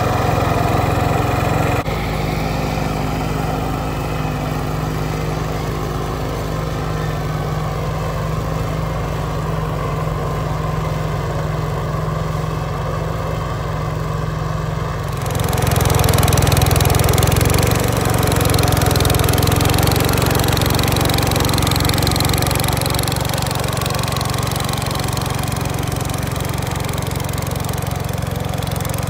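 Wheel Horse garden tractor engines running steadily under load while pulling moldboard plows through sod. The sound shifts abruptly about two seconds in and again about halfway, where it gets louder.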